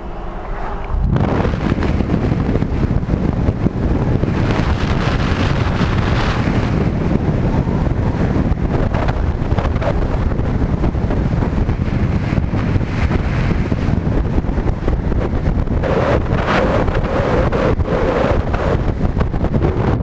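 Heavy wind buffeting the microphone of a camera held out the window of a moving truck at highway speed. The loud rumble cuts in about a second in and stays steady.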